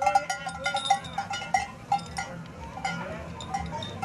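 Metal bells on a yoked pair of oxen's neck straps clanking irregularly as the team walks, growing fainter toward the end.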